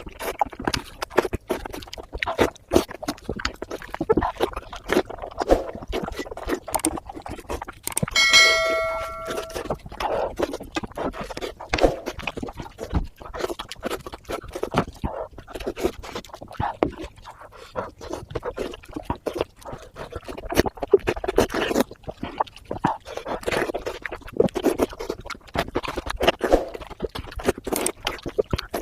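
Close-up eating sounds: pork head being chewed with wet smacking and crunching, a dense run of small clicks and crackles. About eight seconds in, a single bell-like ding rings out for under a second.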